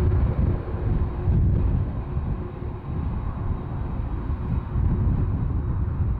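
Boeing 747-400F freighter taxiing on its four jet engines at low power: a continuous low rumble with a faint steady hum, mixed with gusts of wind on the microphone.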